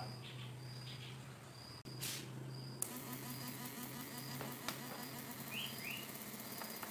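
A homemade 12 V to 220 V inverter for an electrofisher switches on about three seconds in, with a hiss and a fast, even pulsing buzz as it drives its 220 V bulbs, over a faint steady hum. A short high chirp repeats every half second or so throughout, and a bird gives two quick rising chirps near the end.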